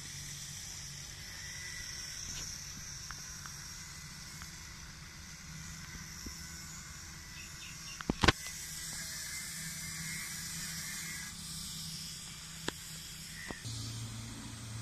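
Outdoor background: a steady high hiss over a faint low hum, broken by a sharp double knock about eight seconds in and a few single clicks near the end.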